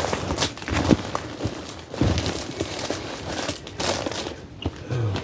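Crinkling and rustling of a packaged poncho being pushed into place in a survival kit, with a few light knocks of gear being handled.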